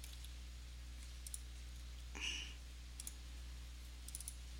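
Computer mouse buttons clicking, several times in quick pairs like double-clicks, over a low steady electrical hum.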